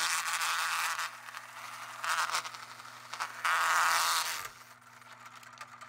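A homemade LEGO table saw driven by a half-horsepower electric motor, running with a steady hum while its spinning LEGO blade cuts a sheet of paper. The paper gives three spells of rough scraping and tearing noise as it is fed in, the last ending about four and a half seconds in.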